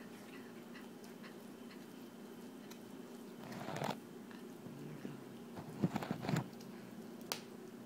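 Kitten gnawing a raw turkey bone: wet chewing and tearing at the meat, with a cluster of louder crunches a little past halfway and a single sharp click near the end.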